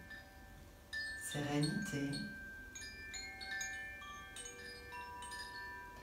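Handheld bamboo-tube wind chime, held up by its cord and gently swung, ringing with clear notes of several pitches that overlap and linger. Fresh notes keep sounding through the second half.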